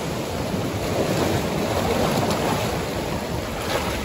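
Sea surf surging and washing around shoreline rocks, swelling a little about a second in.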